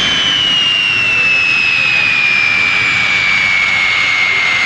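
Four turbofan engines of a large four-engine jet taxiing, a steady jet rush with a strong high whine that slowly falls in pitch.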